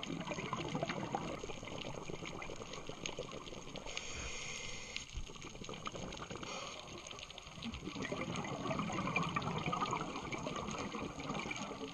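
Scuba diver's regulator breathing heard underwater: bubbling exhaust bursts, with a steady hiss from about four to five seconds in.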